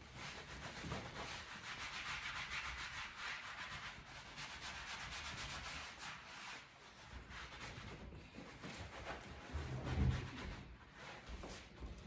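A cloth rubbing back and forth over leather couch upholstery, a continuous scrubbing hiss, with a low bump near the end.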